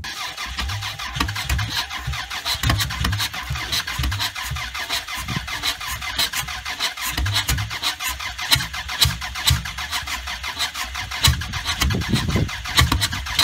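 1993 Toyota Camry engine being cranked over by its starter on a cold start, turning over in an uneven rhythmic chug without catching.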